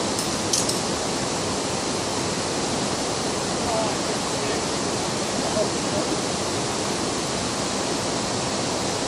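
Steady rushing noise of moving water, even and unbroken, with a brief click about half a second in.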